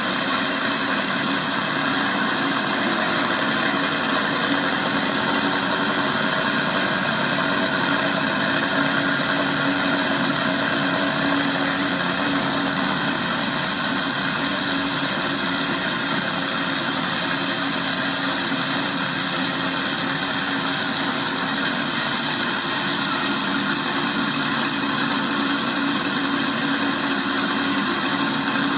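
Top Fuel drag motorcycle engine idling steadily, its pitch unchanged throughout, with no revving.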